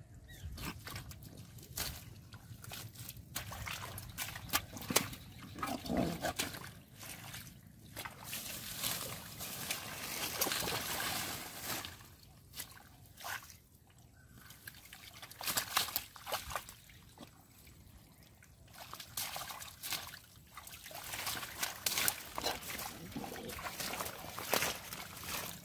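Irregular squelching and splashing in shallow mud and water as a large fish thrashes and is grabbed by hand, coming in bursts.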